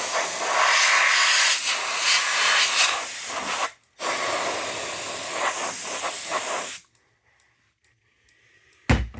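Two long hissing blasts of air, about four seconds and then about three seconds with a short break between, blowing test smoke out of an activated smoke detector to clear it. A single thump near the end.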